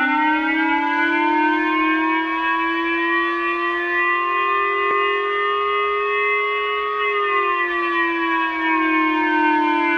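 Siren-like emergency alert alarm tone: one sustained tone of several notes at once that starts abruptly, climbs slowly in pitch, then slides back down from about seven seconds in.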